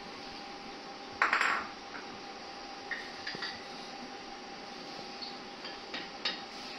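Kitchen dishes and utensils clattering and clinking as they are handled beside the stove, with one loud clatter about a second in and a few lighter clinks after, over a steady background hiss.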